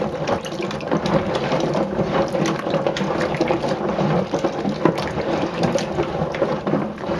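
Black walnuts in their shells being scrubbed and swirled by hand in water in a stainless steel sink: a dense, continuous clatter of hard shells knocking against the metal and each other, with water sloshing. This is the first wash, as the dark husk sludge comes off the nuts.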